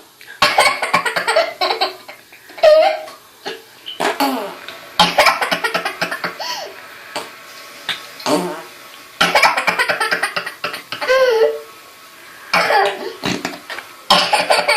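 Laughter in about six bursts of short, quickly repeated laughs, with quiet gaps between them.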